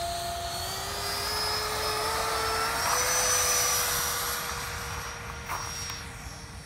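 Electric ducted fans of a Freewing F-15 Eagle RC jet whining on the takeoff roll, rising in pitch as the throttle comes up. The sound swells to its loudest about three seconds in, then fades as the jet gets away.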